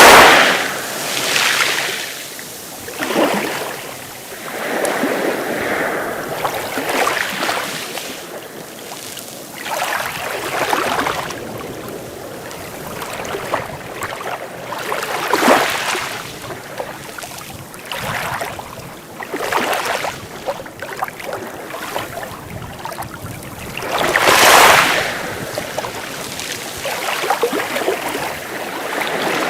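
Sea waves breaking and washing in, a surge of rushing water every few seconds. The loudest surges come near the start and again about 24 seconds in.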